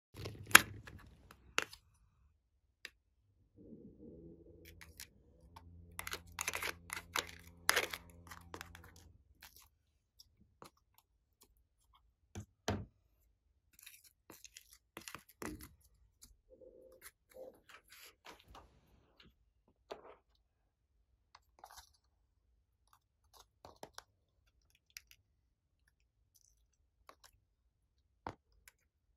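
Hands handling and opening a small round plastic toy container: scattered plastic clicks, taps and crackles, with a steady low pitched creak for about five seconds starting around four seconds in. Lighter ticks and soft sticky sounds follow as blue slime is pulled out of it.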